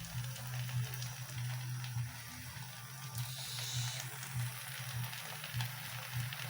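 Quiet background music with a steady low pulsing tone.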